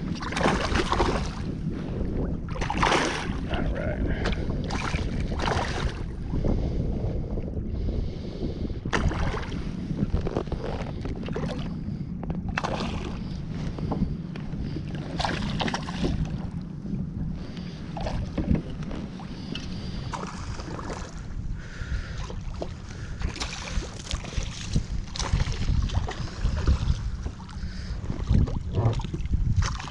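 Wind buffeting the microphone with water lapping and slapping against a small fishing kayak's hull, broken by many irregular splashes and knocks.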